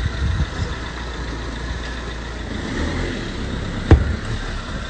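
Small hatchback's engine running slowly with a steady low hum as the car is manoeuvred into a parking space. A single sharp knock comes about four seconds in and is the loudest sound.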